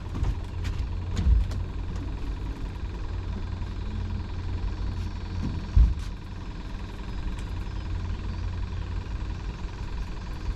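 Boat motor idling with a steady low hum. Two dull knocks come about a second in and again near the middle.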